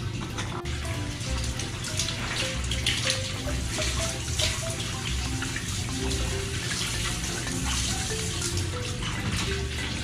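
Steady running water, heard under background music with a simple melody of single notes.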